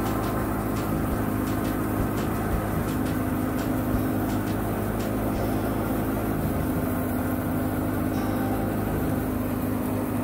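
Tractor-driven wheat thresher running steadily, the New Holland 640's 75 hp engine working under PTO load with the threshing drum and bucket elevator turning. Light clicks come about twice a second in the first half.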